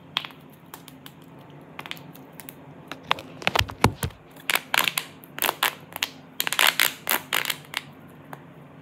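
A paper-covered plastic pop tube toy handled close to the microphone, crackling and clicking in irregular clusters, with a deep thump about three and a half seconds in.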